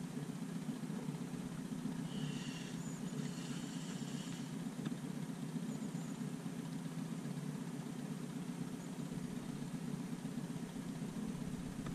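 Steady hum of a boat's motor running. About two seconds in, a higher whirring joins for roughly two seconds, like a spinning reel being wound.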